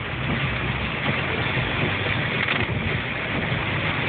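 Heavy hurricane rain pounding on a moving car, heard from inside the cabin as a steady loud noise mixed with tyre spray and road noise from the flooded highway.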